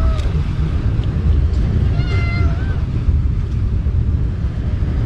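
An animal calling with a drawn-out, meow-like cry: the tail of one call right at the start, then a full call about two seconds in, over a steady low wind rumble.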